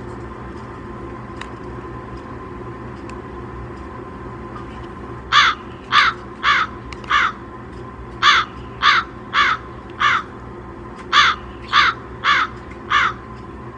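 A crow cawing: three bouts of four harsh caws each, starting about five seconds in, with a short pause between the bouts.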